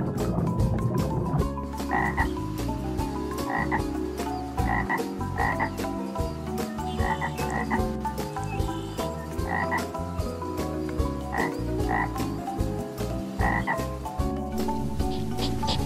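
Frogs croaking: a dense low croaking with short higher calls repeating every second or so.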